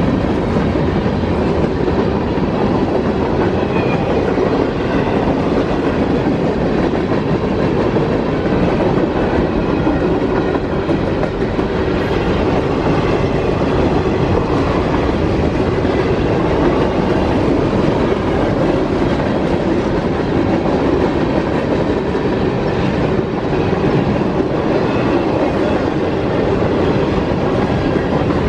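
CSX freight train's boxcars and hopper cars rolling past at a grade crossing: a steady, loud rumble of steel wheels on the rails.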